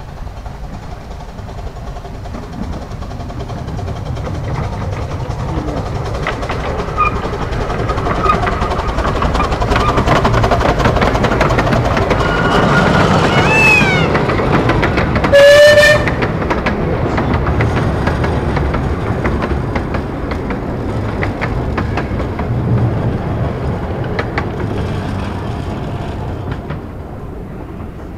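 Miniature steam locomotive and its passenger carriages running past, getting louder as it approaches and then fading as it moves away, its wheels clattering over the track. About halfway through it gives one short blast on its steam whistle, the loudest sound.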